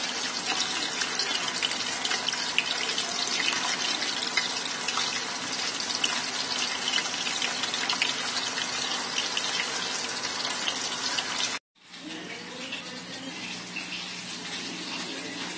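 Cornflour-coated chicken pieces frying in hot oil in a pan: a dense, steady sizzle full of small crackles. It cuts off abruptly near the end, and a quieter hiss with a steady low hum follows.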